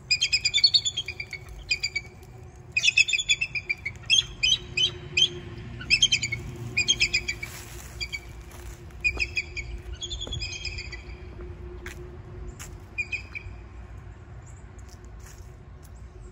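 Bald eagle calling: runs of high, piping chirps in quick succession that thin out and stop about two-thirds of the way in.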